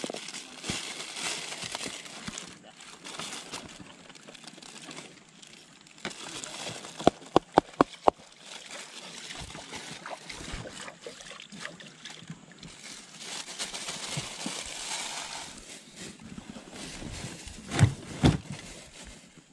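Running river water over rocks, with rustling handling noise. About seven seconds in there is a quick run of five sharp clicks, and near the end two knocks.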